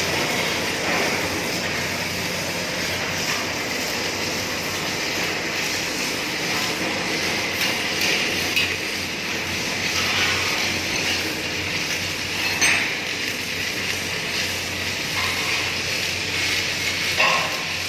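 Submerged arc welding in progress: a steady hissing, crackling noise over a low electrical hum, with a couple of brief sharper knocks near the middle and near the end.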